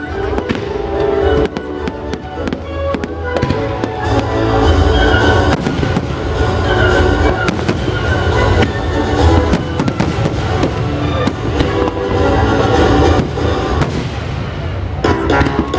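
Aerial fireworks display: dense, rapid bangs and crackles of bursting shells, with music playing underneath.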